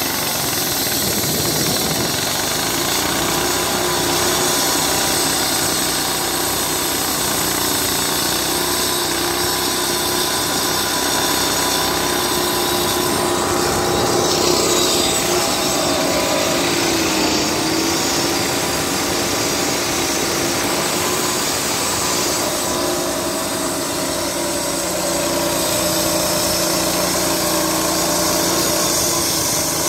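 Diesel-powered walk-behind concrete saw running steadily while its blade cuts through a concrete slab, a loud even engine hum mixed with the grinding hiss of the cut. The engine pitch dips briefly about midway, then steadies again.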